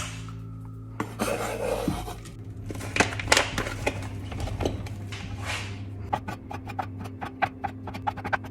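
Kitchen clatter of dishes, pans and utensils being handled, with knocks and scrapes, then a run of quick, even taps from about six seconds in.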